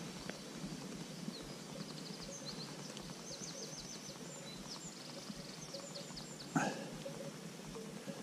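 Small songbird singing a quick run of high chirps and trills over a soft outdoor background. A single sharp knock comes near the end.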